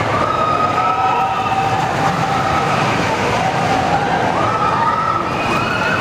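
Riders on an indoor roller coaster screaming as the train passes: several long, high screams overlap one another, with new ones rising in about halfway through and again near the end, over a steady low rumble.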